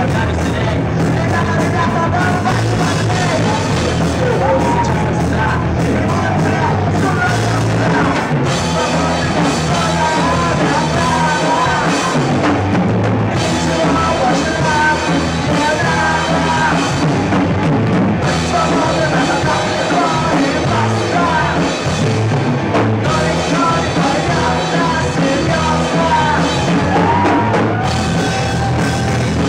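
Live rock band playing loudly and without a break, with a drum kit and a wavering melody line above a steady bass.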